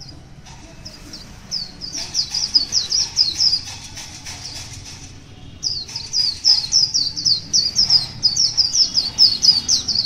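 White-eye singing: quick runs of high, downward-slurred notes, about five a second, in two bursts. The first runs about two and a half seconds; the second, longer one starts a little past halfway.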